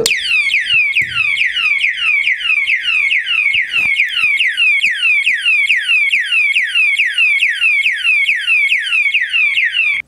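Anti-theft siren alarm padlock set off by being handled. Its loud electronic siren sounds as a rapid series of falling sweeps, about three a second. This is the tamper alarm its motion sensor raises when the locked padlock is moved.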